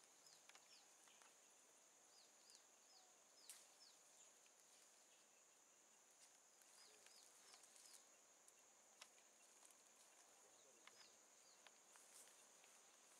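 Faint forest ambience, close to silence: a steady high insect drone, short falling bird chirps in runs of three to five, and a few scattered soft clicks.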